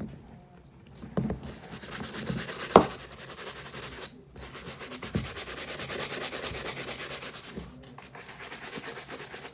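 An all-purpose shoe brush scrubbing a suede sneaker with cleaning solution in fast back-and-forth strokes. One sharp knock comes before the strokes stop briefly about four seconds in.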